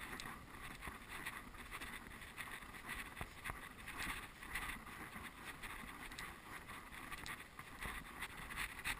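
Footsteps crunching on sand and shells, irregular steps over a steady hiss.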